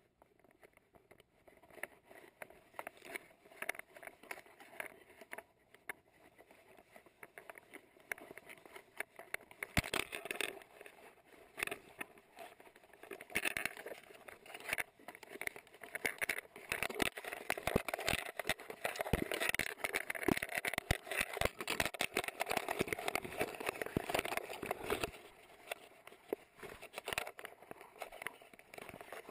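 Leaves, twigs and brush rustling and scraping against a dog-worn GoPro as the dog pushes along a chain-link fence, with many small clicks and knocks from the camera housing. It is sparse at first, grows busier and louder from about halfway, and eases off near the end.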